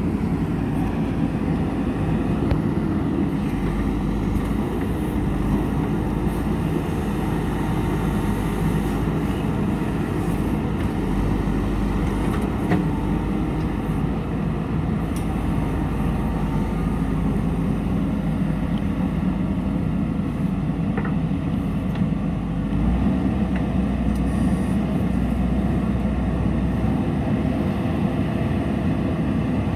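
JCB backhoe loader's diesel engine running steadily, a deep continuous rumble that swells slightly about two-thirds of the way through.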